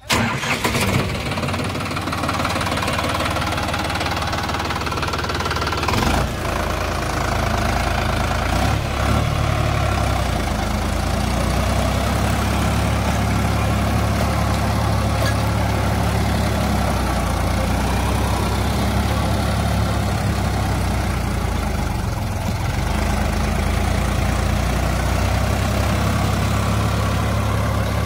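Sonalika DI 47 RX tractor's diesel engine running steadily under load, driving a rotavator that tills the soil.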